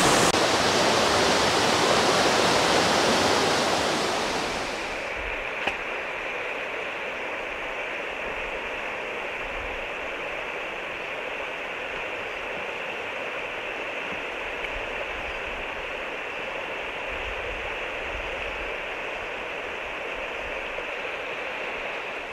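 Mountain stream rushing over boulders, loud and full at first; about four to five seconds in it gives way to a softer, duller, steady flow of a calmer stretch of stream.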